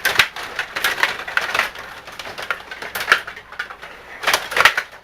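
Irregular sharp clacks and knocks of hockey play, a dozen or so in quick uneven succession, plausibly the rods, players and puck of a table hockey game striking one another.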